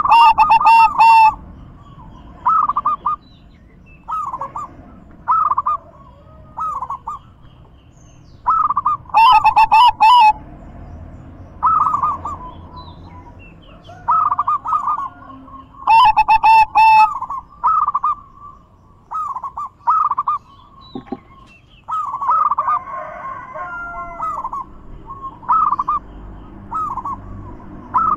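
Zebra doves (perkutut) cooing: short calls repeated about once a second, with three louder passages of about a second each, near the start, about nine seconds in and about sixteen seconds in.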